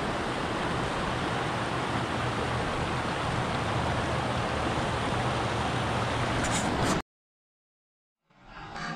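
Steady rush of a fast mountain creek running over rocks. It cuts off abruptly about seven seconds in, and after about a second of silence another sound fades in.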